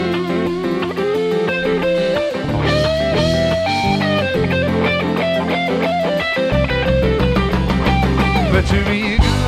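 Live instrumental rock from a trio. An electric guitar (a PRS McCarty) plays a sustained lead line with bent, sliding notes over electric bass guitar and a drum kit.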